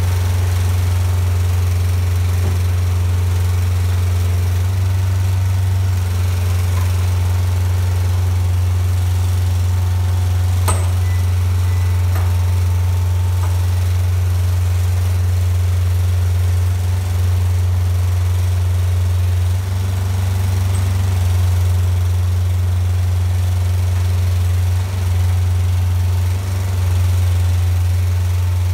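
Diesel engine of a container side lifter running steadily while its hydraulic lifting arms lower a loaded container to the ground. There is a single sharp knock about a third of the way in.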